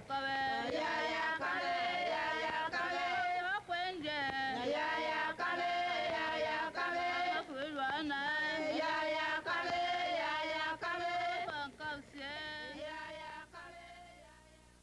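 Voices singing a song, fading out over the last few seconds.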